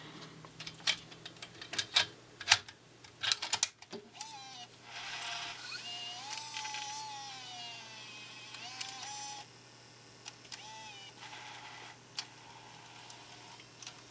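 Panasonic NV-S70 SVHS-C camcorder tape mechanism: a run of sharp clicks and snaps as the cassette is loaded, then the motors run with a whine that rises and falls for several seconds before settling into a quiet run with a few ticks. The video head drum, its bearing freshly lubricated, runs with only a little noise and sounds fairly normal.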